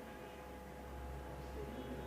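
Quiet room tone: a steady low hum and faint hiss, with no distinct sound events.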